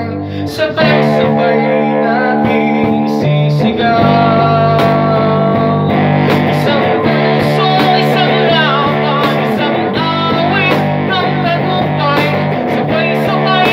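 Electric guitar playing a song through an amplifier, with sung vocals into a microphone.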